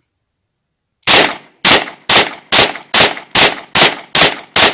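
A copy of a Beretta 92FS 9mm semi-automatic pistol fired rapidly with local 9mm ammunition: nine shots at a little over two a second, starting about a second in.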